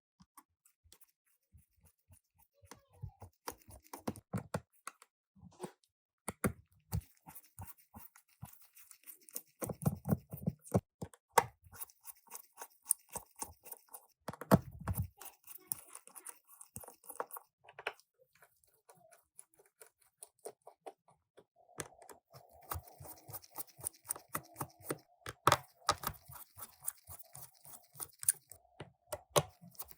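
Irregular small clicks, ticks and scrapes of a Phillips screwdriver and other small tools on a smartphone's plastic back frame as its screws are taken out, with a couple of duller knocks around the middle.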